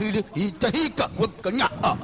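A voice in quick, short cries and exclamations, each rising and falling in pitch.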